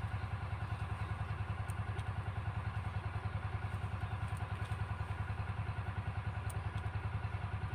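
A small engine idling steadily, with a low, even pulsing of about ten beats a second.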